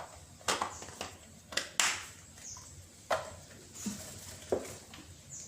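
About six short, sharp taps and clicks, spread irregularly, from kitchen items being handled during spice preparation.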